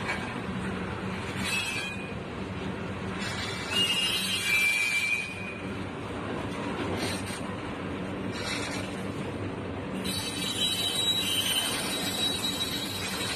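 Slow-moving freight train's cars rolling past over the rails with a steady rumble. High-pitched squeals from the wheels come and go, loudest about four seconds in and again from about ten seconds in.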